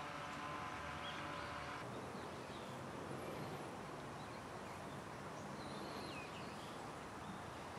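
Faint open-air ambience: a steady hum for the first two seconds or so, then even background noise with a few scattered bird chirps and whistles.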